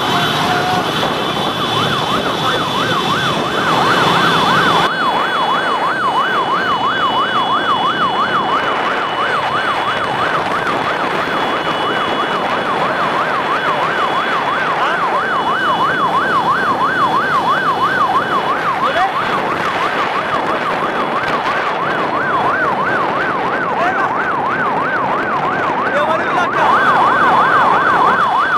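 Electronic siren in fast yelp mode, its pitch sweeping up and down several times a second without a break, over the running engines of a crowd of motorbikes.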